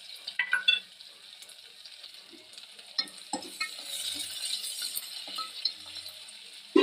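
Sliced onions sizzling in hot mustard oil in an aluminium pot while a metal spoon stirs them, clinking and scraping against the pot several times, with one louder knock near the end.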